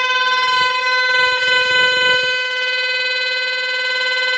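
Plastic bhopu toy horn taped into a running scooter's exhaust silencer, blown by the exhaust gas into one loud, steady, unbroken horn tone like a train horn, with faint engine rumble beneath.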